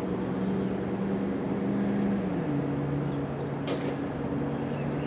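A steady engine hum that drops to a lower pitch a little under halfway through, as if the motor slows.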